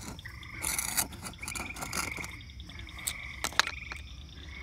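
Frogs calling in a night chorus of short, pulsed high trills that repeat every second or so. A few sharp clicks and a brief rustle come from handling the glass jar, the loudest click about three and a half seconds in.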